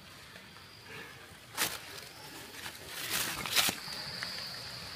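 Fingers scraping and rustling through stony soil and dead leaves in a few short scratchy bursts, about one and a half, three and three and a half seconds in. A steady high insect drone starts near the end.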